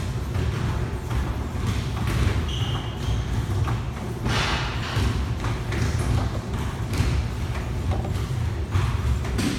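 Gym exercise machines running: a steady low rumble with irregular thumps and knocks, and a short high beep about two and a half seconds in.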